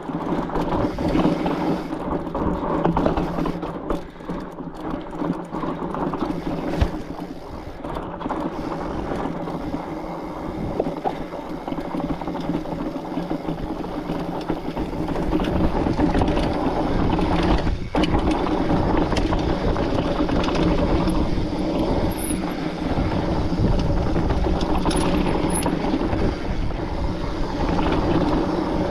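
Foes Mutz mountain bike ridden over slickrock: the rear hub's freewheel gives a steady ratcheting buzz as it coasts, over tyre and frame rattle, with one sharp knock about two-thirds of the way through.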